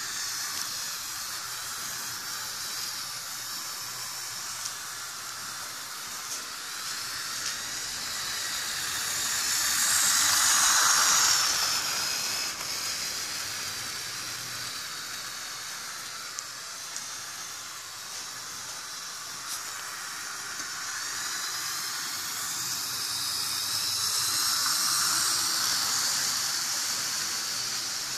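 H0-scale Piko model diesel locomotive running with a train of coal wagons on sectional track: a steady hiss of the small motor and wheels on the rails, swelling louder about ten seconds in and again near the end.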